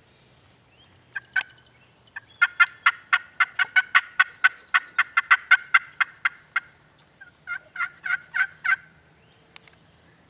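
Turkey yelping: a long, fast run of about twenty sharp yelps at roughly five a second, then after a short pause a second, quicker run of about seven.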